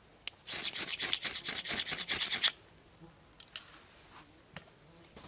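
A rapid run of short scratching strokes lasting about two seconds, then a few faint clicks.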